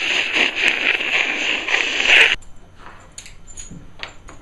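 Electric arc sound effect: a loud crackling, hissing zap that cuts off about two seconds in, standing for a static discharge jumping from a charged antenna coax connector to a fingertip. A few faint clicks follow.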